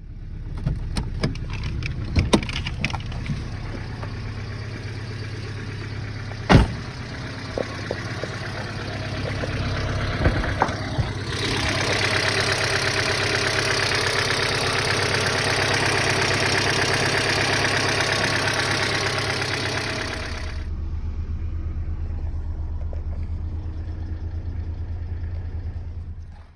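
1997 Hyundai Elantra 1.8-litre four-cylinder engine running, with sharp clicks over the hum in the first few seconds. A louder rushing hiss comes in from about 11 to 20 seconds, then the engine settles back to a steady hum. The engine has a hydraulic lifter tick that replaced lifters and an oil additive have not cured.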